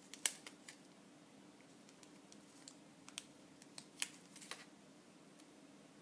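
A few faint, sharp clicks and taps from hands handling small crafting supplies while taking a glue dot from its pack. Some come just after the start and more come three to four and a half seconds in, over a faint steady hum.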